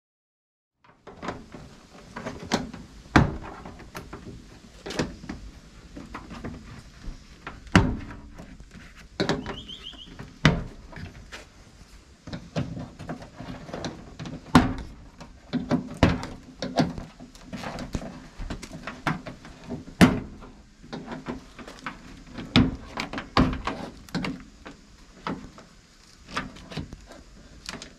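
Plastic clips of a Toyota LandCruiser 78 Series Troop Carrier door card popping and the panel knocking against the steel door as it is pried off with a plastic trim removal tool. Irregular sharp clicks and knocks, one every second or so, with rubbing and thudding between them, starting about a second in.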